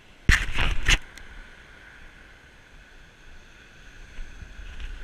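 A short, loud rustle of under a second near the start, then a steady wash of surf breaking on the beach.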